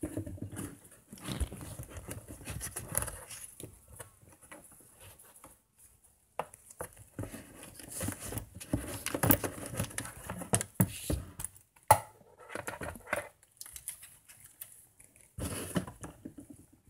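Packaging and parts being handled close to the microphone: irregular rustling, crinkling and light knocks, with a sharp click about two-thirds of the way through.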